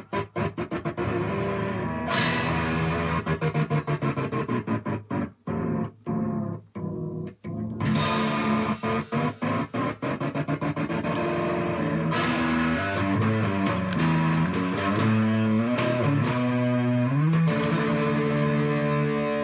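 Distorted solid-body electric 12-string guitar played through effects. Early on its sound is chopped into rapid on-off stutters with a kill switch. Later the notes bend up and down in pitch and then settle into a held, ringing chord.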